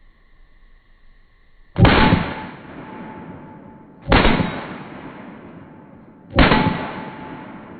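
Three 9mm pistol shots from a Glock 23 Gen 4 firing through a Lone Wolf .40-to-9mm conversion barrel, evenly spaced about two seconds apart. Each shot has a long echoing tail and a short ringing tone after it.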